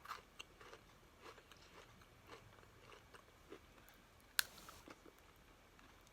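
Someone crunching and chewing a Pocky chocolate-coated biscuit stick: faint, irregular crunches, with one sharper crack about four and a half seconds in.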